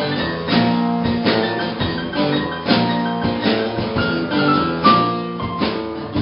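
Instrumental music with a steady drum beat, a strike about every 0.7 seconds, under sustained pitched instruments, with a short falling run of high notes about two-thirds of the way through.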